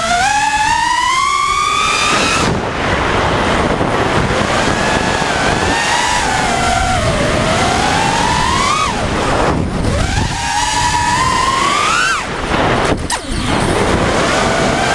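FPV racing quadcopter's brushless motors and propellers whining, the pitch sweeping up and down as the throttle changes, with a brief dip and a click about thirteen seconds in.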